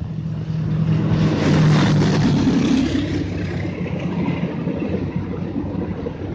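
CC206 diesel-electric locomotive running under power as it pulls a passenger train away, with a low engine drone and rumble that swell to their loudest about two seconds in, then hold steady.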